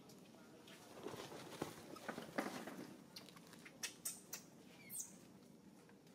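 Long-tailed macaque mother and infant scuffling on a dusty paved floor: a soft rustling scramble in the first half, then several sharp clicks and one brief high squeak about five seconds in.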